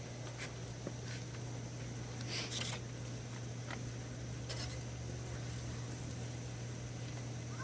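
A few faint clicks and one short scrape of a utensil on a plate as someone takes a bite of scrambled eggs, over a steady low hum.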